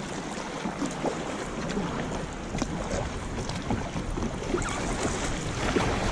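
Water splashing and lapping around a kayak on the sea, in many small irregular splashes, with wind rumbling on the microphone that grows louder near the end.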